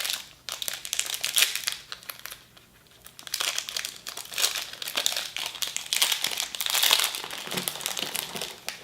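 Crinkling of an individually packed candy wrapper being handled and opened, in irregular bursts with a short lull about two seconds in.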